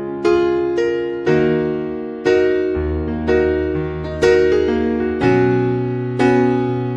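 Background music: a piano or electric piano playing slow chords, about one strike a second over a held bass note.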